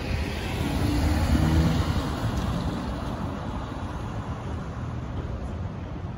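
City street traffic, with a vehicle engine passing that swells about a second in and then eases to a steady rumble.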